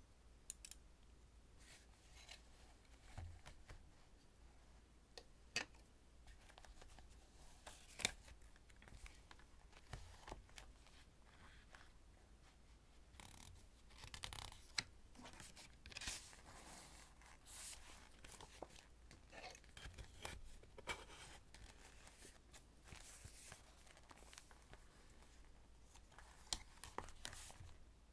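Faint close-up sounds of journaling supplies being handled on a desk: scattered light taps and clicks as tools like tweezers and a pencil are picked up and set down, and soft paper rustling as a notebook is opened and an instant photo print is handled.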